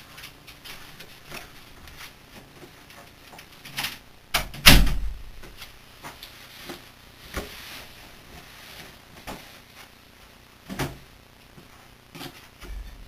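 Scattered knocks and clunks of a person moving about a small bathroom and pulling a hoodie off over his head, with the loudest thump about a third of the way in and another near the end.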